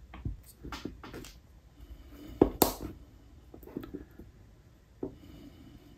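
Scattered small clicks and taps from handling tools and pressing a small plastic gear along a model locomotive's motor shaft, the loudest a pair of sharp clicks about two and a half seconds in.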